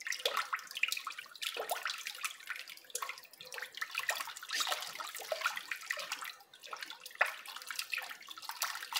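A wooden spoon stirring a thin liquid soap mixture in a plastic basin: the liquid sloshes and swishes, with frequent small irregular clicks.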